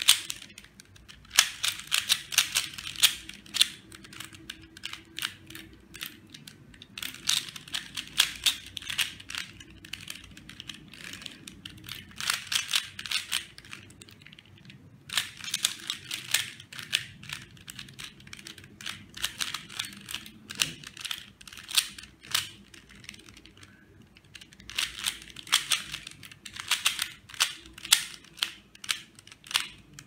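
Stickerless 3x3 speed cube being turned fast in both hands: bursts of rapid plastic clicking as the layers snap round, broken by short pauses of a second or two.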